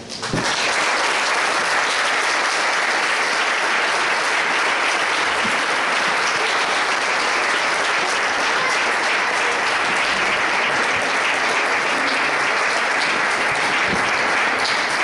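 Audience applauding steadily after a live piano-and-voice performance; the clapping comes in suddenly about half a second in.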